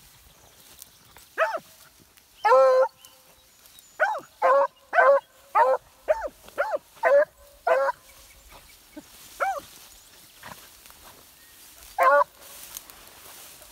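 Dogs barking: about a dozen short, pitched barks that rise and fall, with one longer bark early, a quick run of eight in about four seconds, then two more spaced out near the end.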